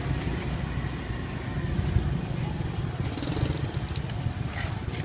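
Steady low rumble of street traffic and motorbikes, with a few light clicks near the end.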